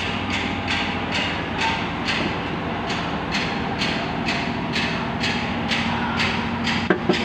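Portable line boring machine running, its motor humming steadily while the cutter on the rotating boring bar scrapes through the worn steel of a Komatsu WA380-3 front axle trunnion bore, giving an even scraping hiss about twice a second. Two sharp clicks near the end.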